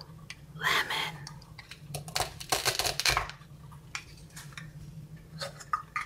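Plastic velcro toy food handled on a paper plate: light clicks and knocks, with a dense crackling stretch about two to three seconds in, over a faint steady low hum.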